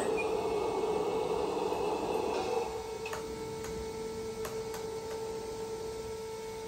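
Hydraulic pump of a LESU Carter374 RC excavator whirring as the arm is worked. About two and a half seconds in it eases off to a steady, lower hum, with a few faint clicks.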